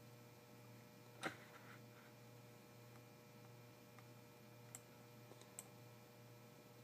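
Near silence over a steady low hum, broken by a few faint clicks at a computer: one sharper click about a second in and several softer ones near the end.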